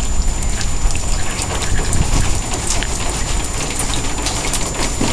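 Footsteps crunching through wet snow, with irregular crackling and a steady low rumble.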